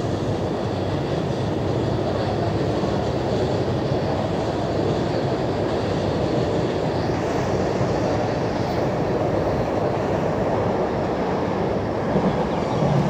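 JR East E233-3000 and E231-1000 electric multiple unit pulling out of the platform, a steady rumble of wheels and traction motors, with a faint rising whine partway through.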